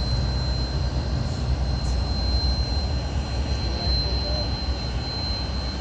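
Antonov An-12's four Ivchenko AI-20 turboprop engines at takeoff power, heard from far off as a steady low rumble.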